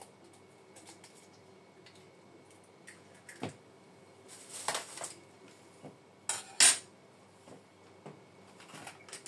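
Kitchen utensils and containers being handled: scattered light clicks and knocks, a short clatter about halfway through, and a sharp, bright clink, the loudest sound, about two-thirds of the way through.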